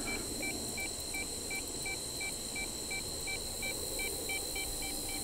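Handheld EMF meter beeping in a steady run of short, evenly spaced beeps, about two and a half a second, as it registers a strong electromagnetic field, which the investigator puts down to power lines.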